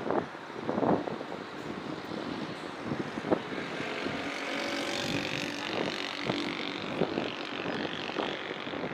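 City traffic noise with a few short knocks early on. From about four seconds in, an engine grows louder as it passes.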